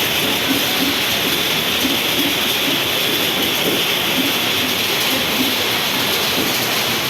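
Heavy storm rain pouring down steadily as a dense, even hiss.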